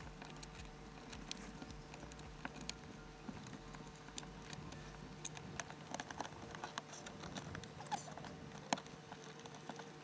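Dashcam cable being pushed into the gap between the car's headliner and roof trim with a pry tool: irregular small clicks, ticks and scratches of plastic and cable, over a faint steady hum.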